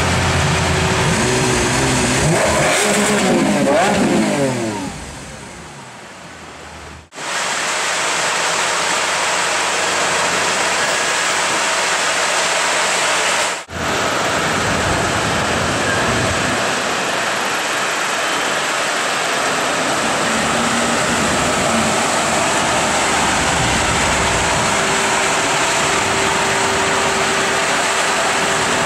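Lamborghini Aventador's V12 engine revving, its pitch climbing and falling several times, then fading out about five seconds in. After a cut it runs steadily at idle under loud street noise.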